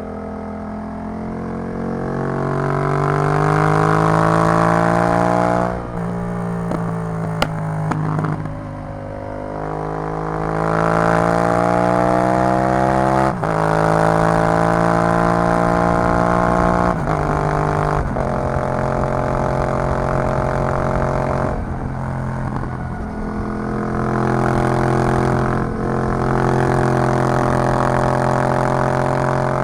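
Yamaha MT-07's parallel-twin engine through an Arrow full exhaust system, pulling up through the gears. The pitch climbs and drops at upshifts about six and thirteen seconds in, then again a little later. It then runs at a steady cruising pitch with a few brief dips in the second half.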